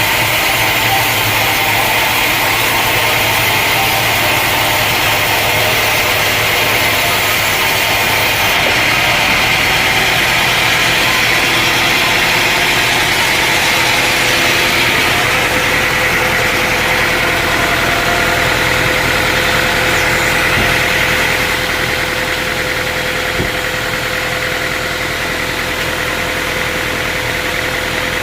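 Sawmill engine running steadily, a constant machine drone with a held tone. It drops slightly in level about three quarters of the way through.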